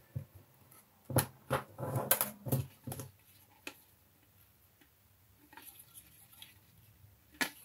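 Light clicks and taps of hard plastic styrene strips being picked up and handled against a plastic model. There are several in quick succession over the first three seconds, a few faint ticks later on, and one sharper click near the end.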